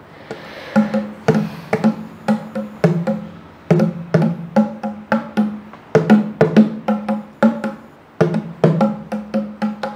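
A pair of bongo drums played with bare hands in a steady rhythm of quick strokes, about three a second, each head ringing with a short pitched tone. There is a brief break a little past three seconds in.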